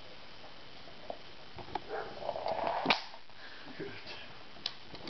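Bengal cat playing with a feather-and-tinsel wand toy on a laminate floor: scattered taps and rustling scuffs, with a noisier stretch ending in one sharp tap a little under three seconds in.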